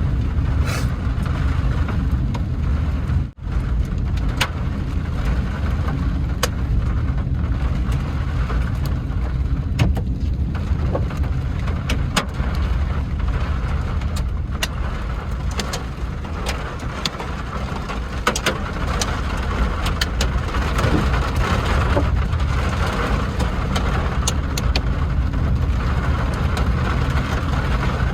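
Car driving in heavy rain: a steady low rumble of engine and tyres on the wet road under a hiss of rain, with scattered sharp drop hits. The sound cuts out briefly about three seconds in.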